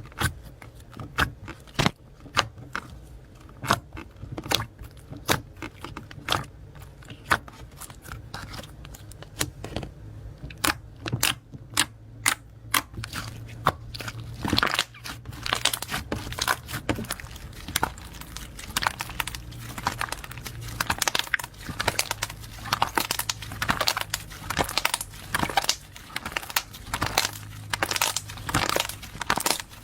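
Slime being handled, squeezed and pressed, giving a run of sharp clicks and pops, spaced out at first and coming thick and fast from about halfway through.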